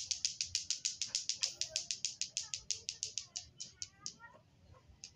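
A rapid run of sharp, high-pitched clicks, about eight a second, that slows and dies away about four seconds in.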